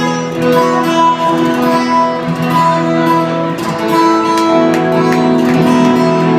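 Amplified guitar playing held, ringing chords live on stage, the chord changing every second or so.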